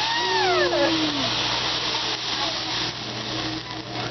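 Fire flaring up over a hibachi griddle: a loud rushing whoosh of flame that dies down after about three seconds. In the first second, people let out drawn-out exclamations that rise and fall in pitch.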